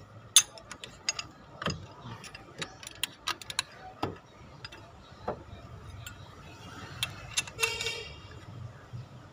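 Combination wrench clicking and clinking against the nuts and metal body of a water pump as it is worked into place: irregular sharp metallic clicks, with one ringing metal clink near the end.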